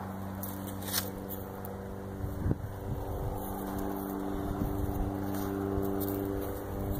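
Homemade ultralight aircraft's engine running in flight, a steady even drone. A couple of short sharp knocks sound about one and two and a half seconds in.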